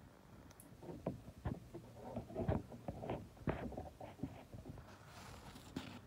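Irregular soft knocks and rustles of a phone being handled and moved, with a short hiss near the end.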